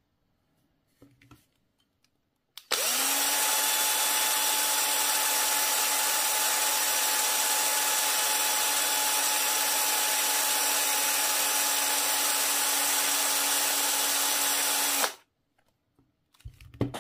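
Cordless drill running at one steady speed: its motor whine rises quickly as it starts about three seconds in, holds steady for about twelve seconds, then stops abruptly.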